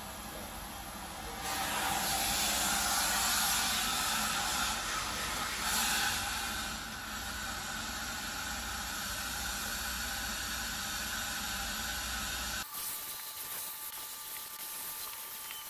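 A commercial steamer runs while its wand hisses steam into a recliner chair for a bed-bug heat treatment. The hiss grows louder about a second and a half in. Near the end the machine's low hum and most of the hiss cut off abruptly.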